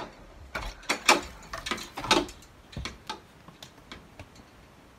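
Small objects being handled and set down off-camera: a run of clicks and knocks, the loudest about one and two seconds in, then a few lighter ticks.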